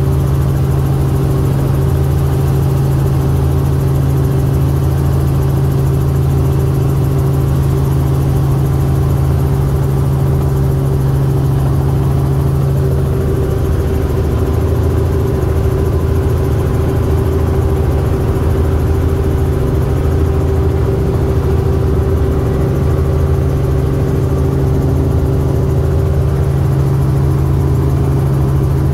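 Small helicopter in flight heard from inside the cabin: a loud, steady drone of engine and rotor with a strong low hum.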